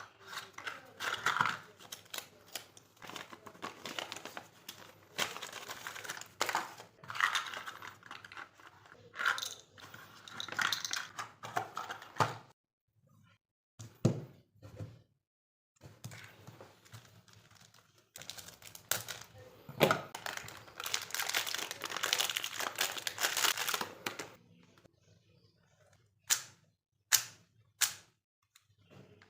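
Plastic packaging crinkling and tearing in irregular handling bursts as a speed cube is unboxed. Near the end it gives way to a few separate sharp clicks.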